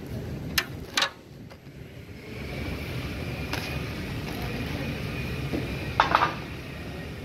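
Auto repair shop background: a steady low hum, broken by sharp knocks. Two come about half a second apart near the start, and a quick cluster of three comes about six seconds in.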